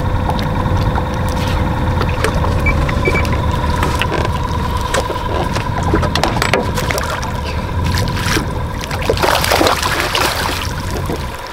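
A steady whine from the boat's electric trolling motor over a low rumble of wind and water, with scattered knocks. About nine seconds in comes a burst of splashing as a hooked crappie thrashes at the boat's side during a fumbled netting.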